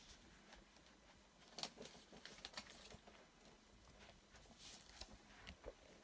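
Near silence: room tone with a few faint, brief clicks and rustles of small handling.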